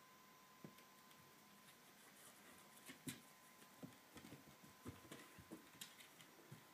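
Faint, irregular taps and scuffs of a kitten's paws on a wooden floor as it pounces and bats at a foxtail grass stem. They come more often in the second half, with the sharpest tap about halfway through.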